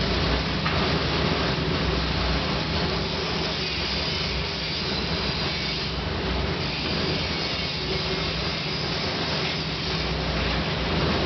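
Tilting metal-melting furnace running: a steady rushing noise with a low hum underneath, unchanging throughout.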